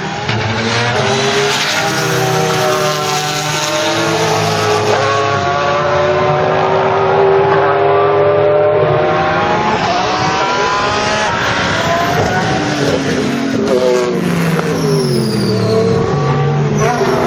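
Pagani Zonda C12 GR race car's Mercedes-AMG V12 at full throttle. It climbs in pitch through several upshifts over the first half, then drops in steps through downshifts a few seconds before the end.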